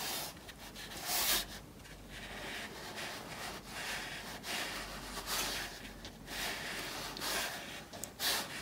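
A 3/4-inch flat watercolour brush dragged over rough watercolour paper in a series of short, soft, scratchy strokes. These are broken strokes that leave bits of the white paper showing through.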